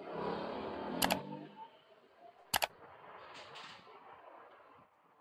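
Mouse-click sound effects from a like-and-subscribe button animation: a quick double click about a second in and another about a second and a half later, over faint street background noise.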